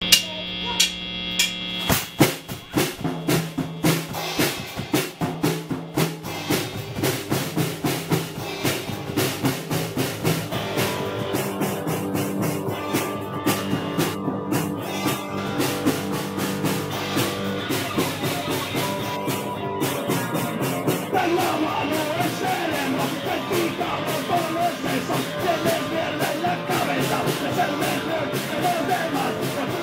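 Rock band playing live: an Adam drum kit keeps a steady driving beat under electric bass and a Squier electric guitar, the drums coming in about two seconds in. A man's singing voice joins about two-thirds of the way through.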